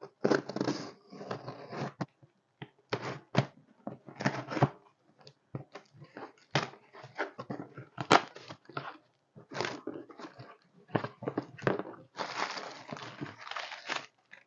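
A parcel being opened by hand: irregular tearing, crinkling and rustling of packaging, with a few sharp knocks and a longer stretch of tearing near the end.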